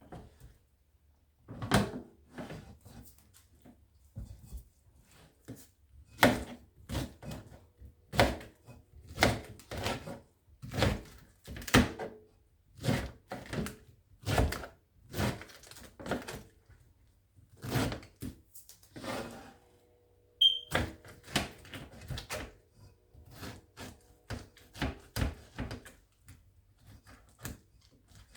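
A kitchen knife chopping through produce onto a cutting board: uneven sharp knocks, about one a second, with a short break around twenty seconds in.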